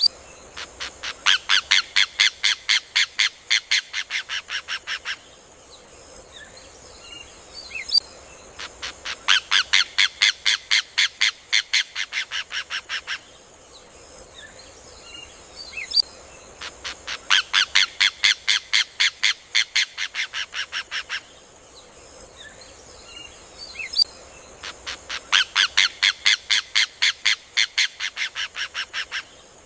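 Rufous hornero (João de Barro) singing: four bouts about eight seconds apart, each a rapid run of loud, high-pitched notes lasting about four seconds that fades toward its end. A steady high-pitched hiss runs underneath.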